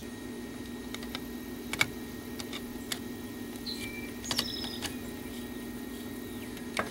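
A small motor hums steadily at one constant pitch, with scattered light clicks and taps over it.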